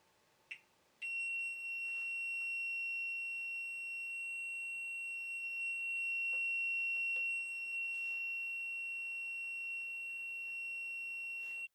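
Steady high-pitched electronic beep tone, held unchanged for about ten seconds after a brief chirp, then cut off suddenly.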